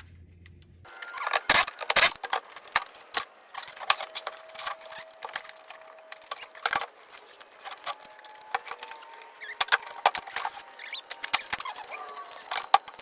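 Hand tools clicking, knocking and scraping on metal as a bracket is taken off a 1995 Jeep XJ Cherokee body, in irregular bursts of sharp metallic clicks with a few faint squeaks in between.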